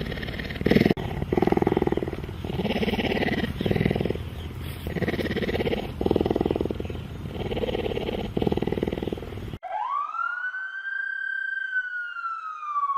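Cheetah sounds: a run of rough, pulsing calls in short repeated bouts. The calls cut off abruptly about ten seconds in, and a long siren-like tone follows that sweeps up quickly and then slowly falls.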